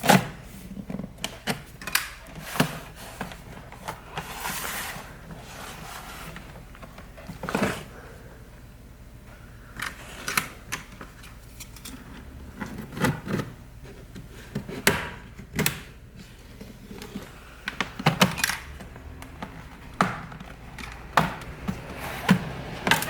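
Plastic clips of an HP 14s laptop's bottom cover clicking and snapping loose as a pry tool is worked around the seam: irregular sharp clicks and light knocks, with a brief scraping rustle about five seconds in.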